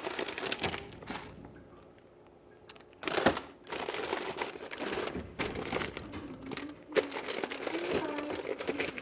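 Plastic food packaging crinkling and rustling as cheese packs are handled and sorted through, in irregular bursts with a short lull about two seconds in.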